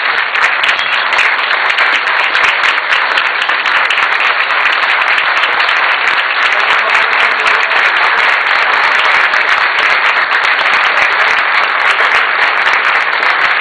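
A large audience clapping steadily in a standing ovation, many hands at once with no break.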